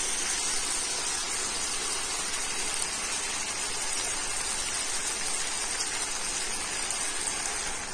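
Mutton curry with potatoes and papaya sizzling steadily in oil and masala in a kadai while a spatula stirs it. This is the dry-frying (kosha) stage, before any water is in the pan. The sizzle drops away at the very end.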